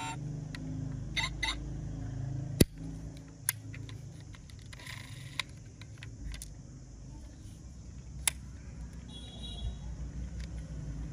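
Toy car sounds: a steady low engine-like rumble, with a few sharp plastic clicks and a short electronic chirp early on.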